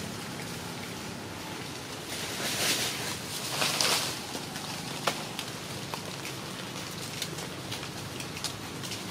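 Outdoor ambience: a steady low hum under a soft hiss, with a rushing swell of noise about two to four seconds in and a few small sharp clicks or snaps just after.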